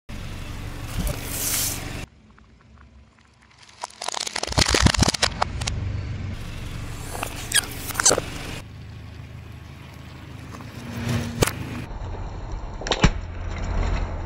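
A car tyre rolling slowly over small objects on concrete, crushing them with sharp cracks and crunches, several of them at intervals, over a low rumble from the car. The background changes abruptly several times between short clips.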